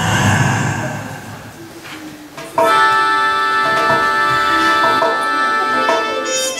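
Music: a sudden loud burst at the start that dies away over about a second, then, about two and a half seconds in, a held chord starts abruptly and sounds steadily to the end.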